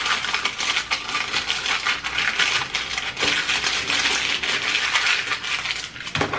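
A bag of Cheetos crinkling and rustling as it is handled: a dense, continuous run of small crackles that eases off shortly before the end.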